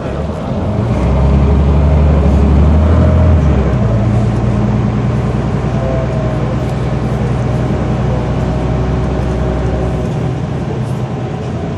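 Scania OmniCity single-deck bus's diesel engine heard from inside the passenger saloon, growing louder over the first two seconds as the bus accelerates. Its note changes about four seconds in, and it then runs on steadily at cruising speed.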